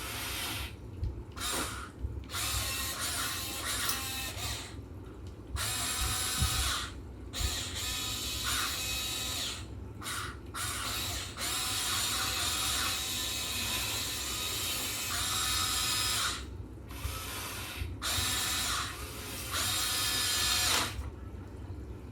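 Huina 1580 all-metal RC excavator's small electric gear motors whirring with a gear whine, in repeated runs of one to five seconds that start and stop abruptly as its functions are worked.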